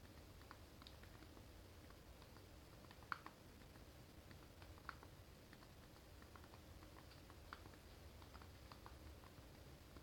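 Faint, irregular key clicks from the GPD MicroPC's small thumb keyboard being typed on with both thumbs, several taps a second, with one louder click about three seconds in.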